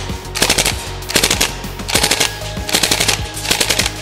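Northeast MP2A1 UZI gas-blowback airsoft submachine gun, run on propane, firing five short full-auto bursts less than a second apart. Each burst is a quick rattle of shots with the bolt cycling, fired in bursts because the gun struggled on a full mag dump.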